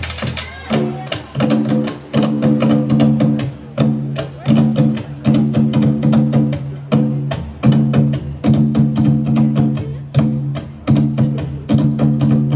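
Music for a Tahitian ʻōteʻa dance: fast, dense drumming over a repeating low pitched pattern.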